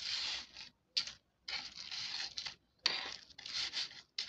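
Metal tongs scraping and rubbing on a plate as a fried banana fritter is rolled in sugar, in several gritty bursts with short silent gaps between.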